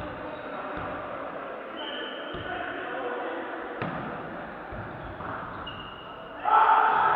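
Volleyball game in a gym hall: players' and spectators' voices echo throughout, with a single sharp smack of the ball about four seconds in. Voices get louder about six and a half seconds in.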